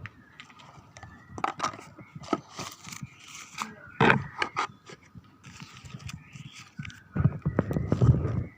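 Irregular clicks, knocks and scraping of objects being handled, with one sharp knock about four seconds in and louder, lower handling noise near the end.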